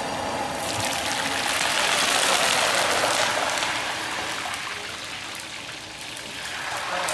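Food deep-frying in a frying pan of hot oil over a gas flame: a dense, steady sizzle full of fine crackles. It is loudest a couple of seconds in, eases a little later and swells again near the end.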